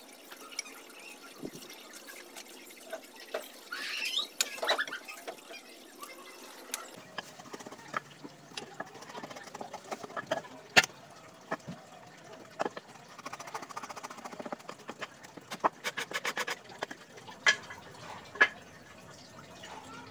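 Teak wood being worked with hand tools: scraping shaving strokes, then chisel work with light taps, a quick rattle of clicks and a few sharp knocks of wood, the loudest about eleven seconds in.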